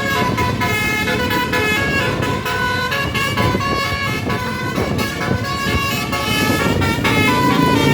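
Bus telolet horn of the Basuri type, a set of electric horns sounding a quick tune of changing notes, with a motor vehicle running underneath.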